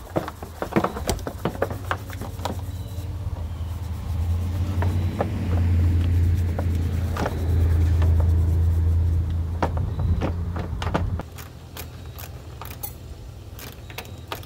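Plastic electric-fan shroud and fan assembly knocking and clicking against the radiator and frame as it is worked into place, with small metal clinks of fasteners. Under it runs a steady low hum that cuts off suddenly about three-quarters of the way through.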